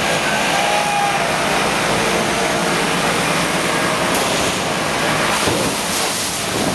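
Artificial storm from film-set effects machines: a steady, loud rush of wind-driven water spray with an engine-like drone underneath.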